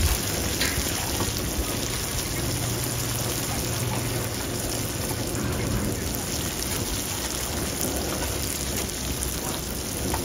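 Steady sizzling hiss of food frying in hot oil at a street-food stall, with a faint low hum for a few seconds.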